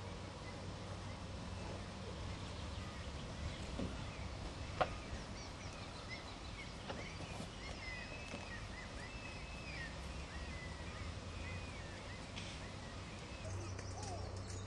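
Outdoor ambience with a steady low hum, small birds chirping faintly through the middle, and a single sharp click about five seconds in.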